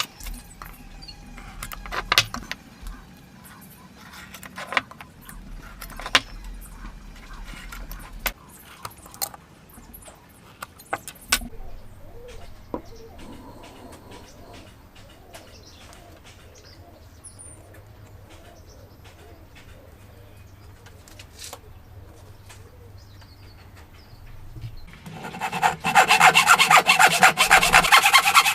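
Hand woodworking on wood: scattered light knocks and taps, then a quieter stretch, then near the end a loud, fast, even run of strokes, a hand tool scraping or sawing through wood.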